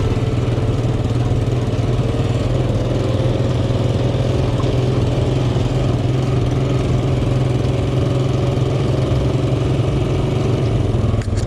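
A vehicle engine running steadily at low revs, a constant deep hum.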